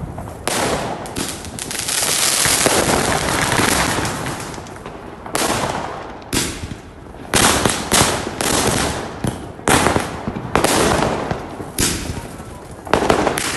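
Diwali fireworks and firecrackers going off: a dense run of crackling and bangs in the first few seconds, then sharp bangs one after another, each followed by crackle.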